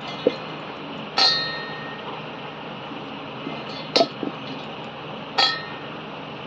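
Metal kitchen utensil striking a metal pot or bowl: three ringing clinks a second or more apart, the first ringing longest, over a steady hiss.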